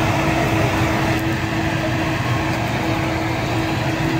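Steady hum and noise of an electric fan running beside a charcoal seekh-kebab grill, over the constant din of a busy street.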